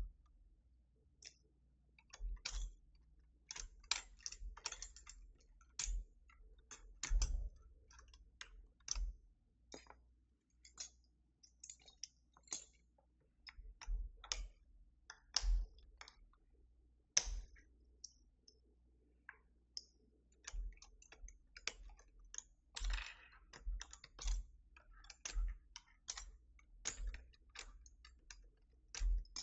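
Keycaps being pulled off a Keychron V6 Max mechanical keyboard: a string of short, sharp plastic clicks at irregular spacing, about one or two a second.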